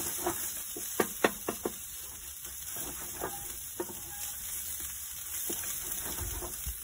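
A picada of garlic, toasted almonds, bread and tomato sizzling as it fries in a little oil in a wide shallow pan. A wooden spatula scrapes and taps the pan as it is stirred, with a cluster of sharper knocks about a second in.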